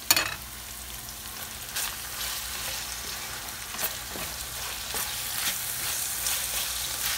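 Minced chicken and onion sizzling in olive oil in a stainless steel frying pan as a wooden spoon stirs it, with scraping strokes every second or so. There is a sharp knock right at the start.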